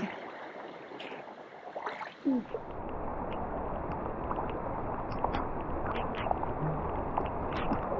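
Water splashing and gurgling around swimmers in a narrow rock gorge, over a steady rush of flowing water, with scattered small splashes. A brief voice sound comes about two seconds in.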